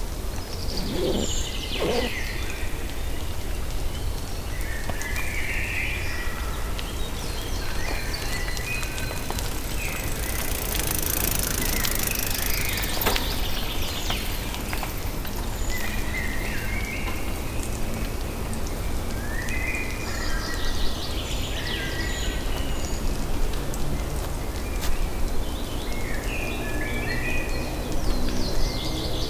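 Outdoor ambience: small birds chirping in short phrases every few seconds over a steady low rumble, with a brief rush of hiss about ten seconds in and a low hum near the end.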